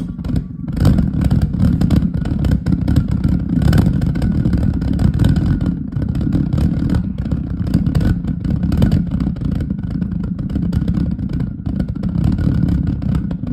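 Homemade Thermojet-style pulse jet, a glass bottle burning methanol vapour with a metal umbrella-shaft tube as its exhaust, catching right at the start and then running loudly with a rough, rapid pulsing.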